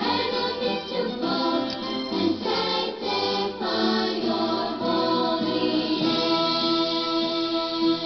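Background music: a choir singing a Christian song, with longer held notes near the end.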